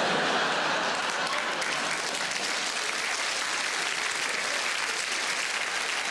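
Large theatre audience applauding, a dense, steady round of clapping.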